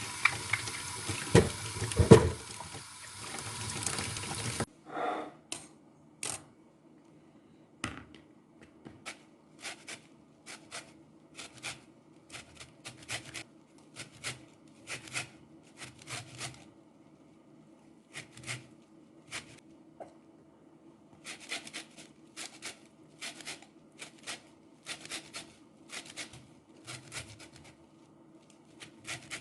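Kitchen tap water running, which cuts off suddenly about four and a half seconds in. It is followed by a long series of short, sharp knife strokes on a cutting board, about one to two a second in uneven runs, as citrus fruit and ginger are cut up.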